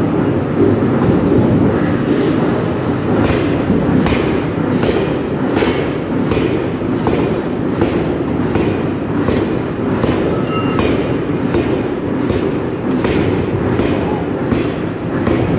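Forging hammer and forge-shop machinery running: a loud, steady, heavy rumble with sharp knocks at a regular beat of about one every 0.8 seconds.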